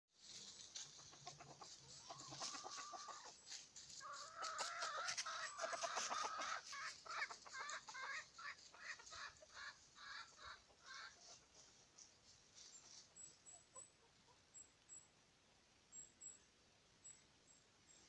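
Gauloise saumon doré chicken calling: two drawn-out calls, then a run of short clucks that fade out about two-thirds of the way through.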